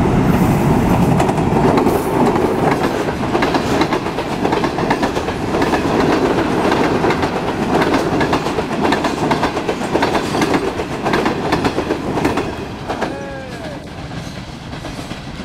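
A Pakistan Railways passenger train, a ZCU-20 diesel-electric locomotive hauling express coaches, passes close by at about 60 km/h. It makes a loud, steady rumble with rapid clickety-clack of the wheels over the rail joints. The sound drops off about three-quarters of the way through as the last coaches go by and the train recedes.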